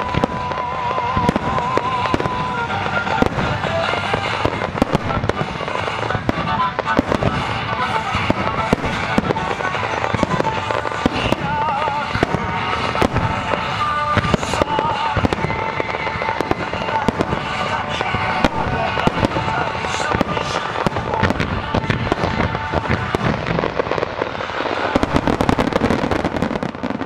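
Fireworks display: aerial shells bursting in a rapid, continuous barrage of bangs and crackle, densest near the end as a large salvo goes up.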